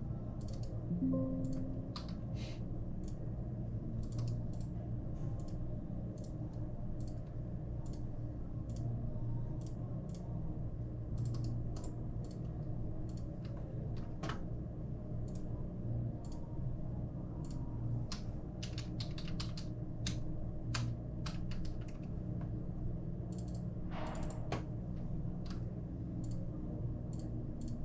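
Computer keyboard typing and clicks at irregular intervals, over a steady low hum.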